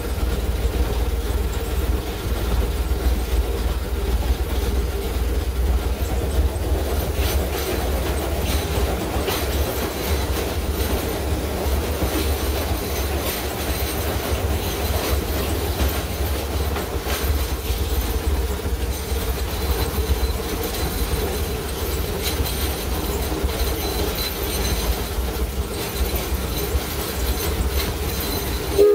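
Steam locomotive running at steady speed, heard from inside its cab: a continuous low rumble of the running gear and wheels on the rails, with a thin steady squeal from the wheels over it.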